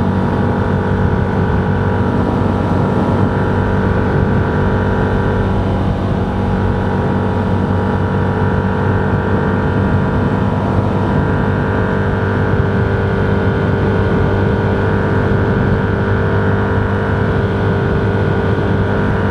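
Steady drone of a vehicle being driven: engine hum and road noise holding an even pitch and level throughout.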